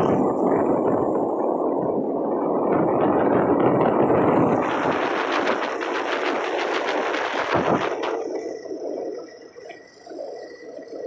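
Loud rough rushing and crackling of wind buffeting a phone's microphone on a moving motorcycle. The crackling is thickest between about four and eight seconds in, then the noise drops away and thins near the end.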